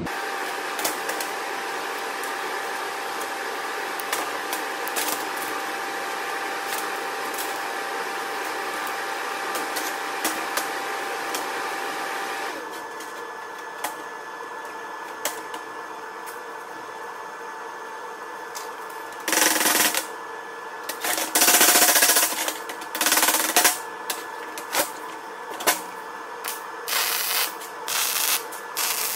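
MIG welder tack-welding a clamped steel billet: several short bursts of crackling arc, each a second or less, beginning about two-thirds of the way in. Before the welding, a steady machine hum with scattered clicks.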